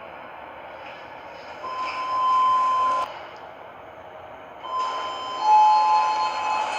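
Sigma elevator's electronic chime: one held tone of about a second and a half that cuts off sharply, then a second chime in which a slightly lower tone joins the first and both ring for over a second. A steady hiss lies under it.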